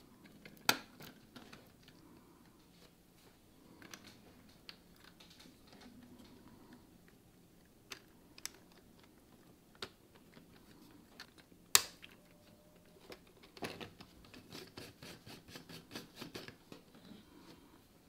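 Small 3D-printed plastic toy truck parts being handled and fitted together on a tabletop: scattered plastic clicks and knocks. One sharp click comes just under a second in and the loudest about two-thirds of the way through, then a quick run of light clicks follows near the end.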